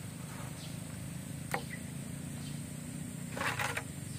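Metal spoon stirring thin batter in a stainless steel bowl, with a sharp clink about one and a half seconds in and a short run of clinks and scrapes against the bowl near the end, over a steady low hum.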